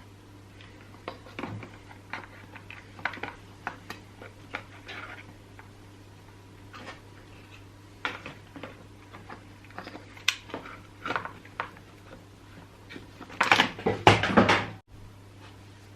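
Plastic chainsaw housing and parts being handled and fitted by hand: scattered clicks, taps and light knocks, with a louder spell of clattering near the end that cuts off suddenly.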